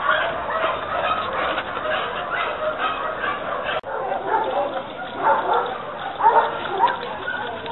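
Many animals calling over one another in short, overlapping cries, with a sudden brief drop about four seconds in and louder calls near the end.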